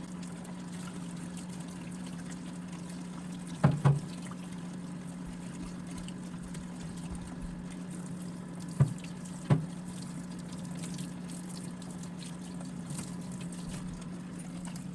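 Tap water running steadily as the print bed is rinsed under it, with a low steady hum. Four short knocks cut through it, a pair about four seconds in and another about nine seconds in.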